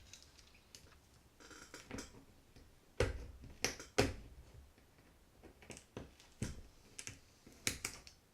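Irregular sharp metal clicks and taps of a small tool working the drag retainer ring out from inside a Penn 260 Slammer spinning reel's spool, the loudest two about three and four seconds in.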